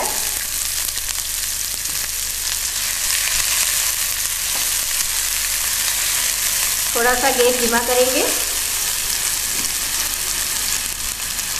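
Chopped red onion sizzling steadily in hot oil in a nonstick frying pan, stirred with a silicone spatula.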